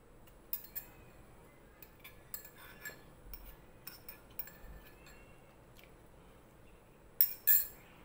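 Metal spoon clinking and scraping against a ceramic soup bowl: scattered light clinks, then two louder clinks near the end.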